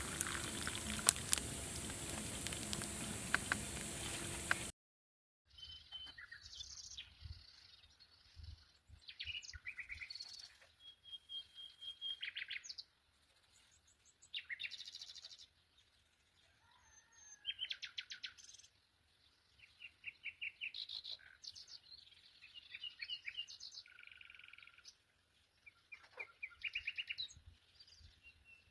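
Water running with a steady rush for the first few seconds, cutting off suddenly. Then small birds sing in short phrases of fast trills and chirps with pauses between them.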